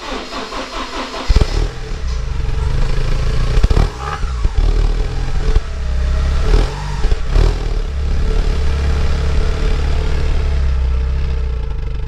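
Porsche 944's inline-four engine firing up and running at the exhaust tailpipe on its test start after new timing and balance shaft belts, blipped several times in the first half before settling into a steady run.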